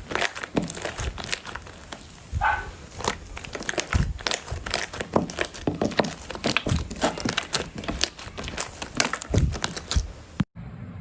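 Slime being squeezed and stretched by hand, a dense irregular run of sticky crackles and small pops. It cuts off abruptly near the end.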